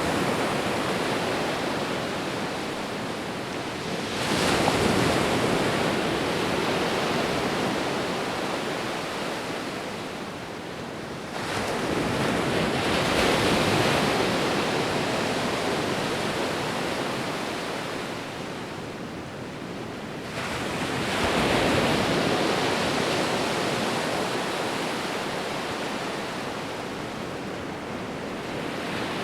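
Sea waves breaking and washing up the shore in three surges, each rising quickly to a rush of surf and then slowly fading away.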